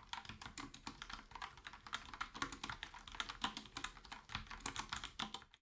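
Fast typing on a Logitech POP Keys mechanical keyboard with round typewriter-style keycaps: a quick, uneven run of key clicks, many strokes a second.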